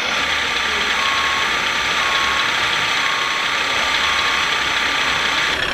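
Scale RC fire truck's sound module playing a diesel engine idling, steady and unchanging, over a dense hiss. The sound changes abruptly near the end.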